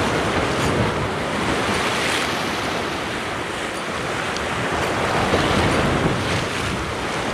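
Sea surf washing against a rocky shore, a steady rushing that swells a little a couple of times, with wind buffeting the microphone.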